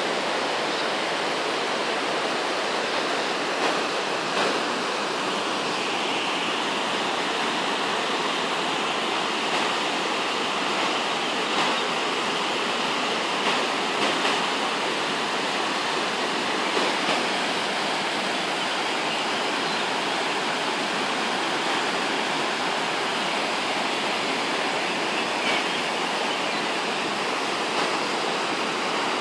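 Swollen river in flood rushing past, a steady, unbroken noise of fast, turbulent brown water breaking over rapids.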